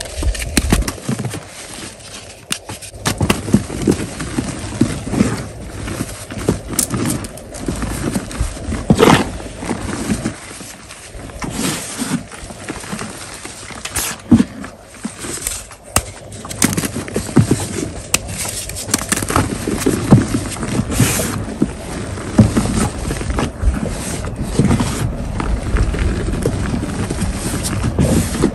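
Hands crushing, squeezing and pressing into green-dyed gym chalk: an irregular run of soft, powdery crunches and scrapes, with sharper crackles now and then.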